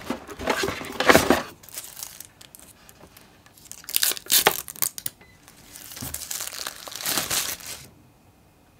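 Cardboard box and paper packaging rustling and crinkling in three bouts as a wireless security camera is unpacked and handled.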